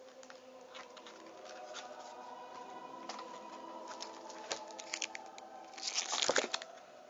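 Yu-Gi-Oh special edition packaging being handled to get the cards out: scattered light clicks and rustles of plastic and card, with a louder crinkle about six seconds in. A steady buzzing hum runs underneath.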